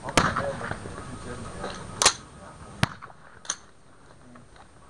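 Four rifle shots from AR-15-style rifles, unevenly spaced over about three and a half seconds, the last one fainter: slow-fire shots from the line of shooters.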